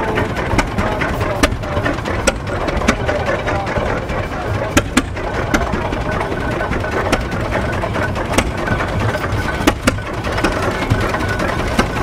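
An engine running steadily, with scattered sharp clicks.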